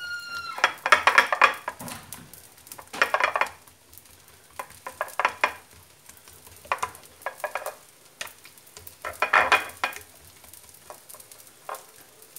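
Oiled msemen dough pressed and spread flat by hand on a plate: irregular clusters of short wet slaps and squishes, with pauses between them.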